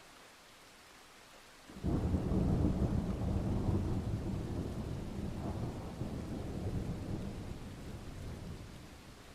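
Thunderstorm: faint steady rain hiss, then a clap of thunder that breaks in suddenly about two seconds in and rolls on as a deep rumble, fading slowly over the next several seconds.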